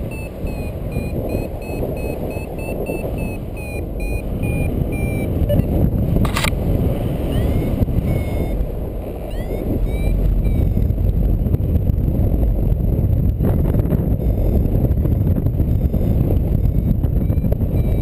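Wind rushing over the microphone of a paraglider in flight, loud and steady. Over it a flight variometer beeps in quick short high tones for about the first five seconds, the sign of climbing in lift, then only in scattered chirps. A sharp click comes about six seconds in.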